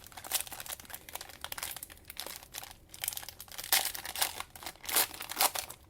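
Cellophane wrappers of trading-card cello packs crinkling and tearing as they are opened, in irregular bursts that are loudest in the second half.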